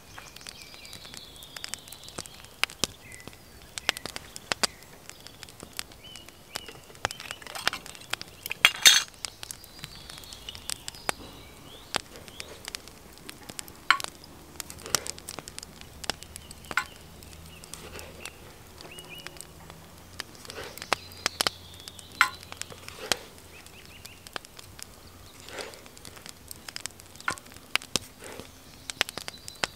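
Small wood fire of split kindling crackling, with irregular sharp pops throughout and the loudest cluster of pops about nine seconds in.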